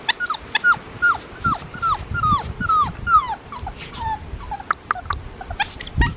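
Young Australian Shepherd puppy giving a quick series of short, high calls, each falling in pitch, about three a second, tailing off about four and a half seconds in. Rustling and a few sharp clicks come between and after the calls.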